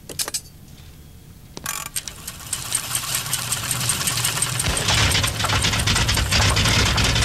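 A couple of sharp clicks as a clamp goes on, then a rattling, knocking engine-like machine noise starts about a second and a half in and keeps building, joined by a low rumble over the last couple of seconds. It is a cartoon sound effect for a rickety pedal-driven stomach pump running.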